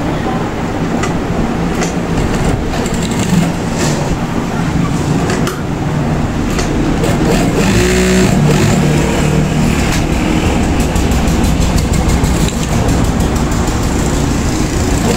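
Industrial lockstitch sewing machine running, a steady motor hum under the needle's stitching, with a fast, even clatter of stitches in the last few seconds.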